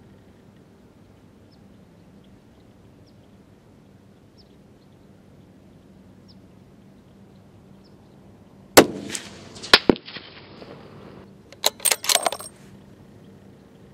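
A .300 Winchester Short Magnum bolt-action rifle fitted with a muzzle brake fires a single shot about nine seconds in. A few seconds later the bolt is cycled: a quick run of sharp metallic clicks and clacks.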